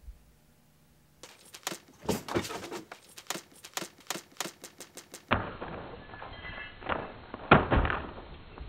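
A quick, irregular run of sharp knocks and clicks, several a second, starting about a second in; after about five seconds it gives way to a duller noisy stretch with a few single thuds.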